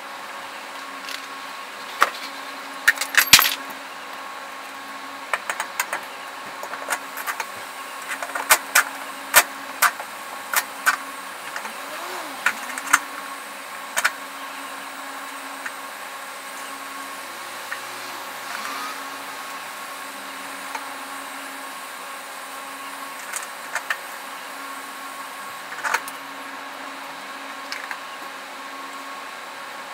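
Scattered sharp metallic clicks and clinks of hand tools and parts being worked on the underside of a Hyundai H1 van, most of them in quick runs in the first half and a few later, over a steady workshop hum.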